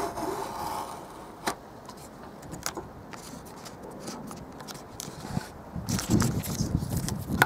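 Scattered clicks and scrapes of a utility knife, steel rule and cut strip of Flashband being handled on a plywood board, with a busier stretch of rustling and clicking near the end.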